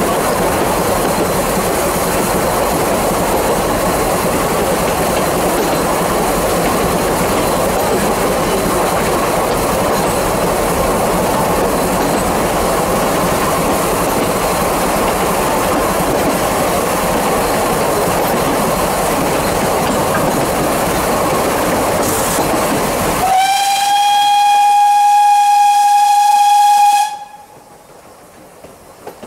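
Vale of Rheidol narrow-gauge steam train running, heard from on board as a steady rumble and rattle of the carriages. Near the end the steam whistle gives one blast of about three and a half seconds, then the sound drops away to quiet.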